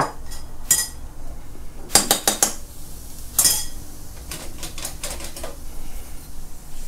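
Metal kitchen utensils and dishes clinking in a scattering of sharp knocks, with a quick cluster of four or five about two seconds in and another clink about a second later, over a low steady hum.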